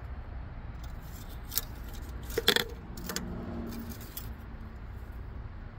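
A few light clicks and scrapes of an engine oil dipstick being worked into its tube, the loudest about two and a half seconds in, over a steady low rumble.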